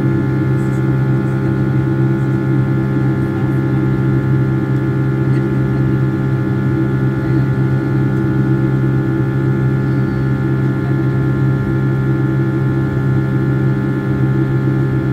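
Steady drone of a Boeing 757-300's Rolls-Royce RB211 turbofan engines heard inside the cabin in flight: an even, loud hum built of several held tones.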